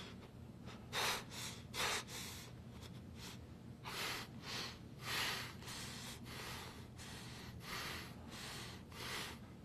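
Heavy, ragged breathing of a badly beaten man, a quick run of hissy breaths roughly every half second over a low steady hum.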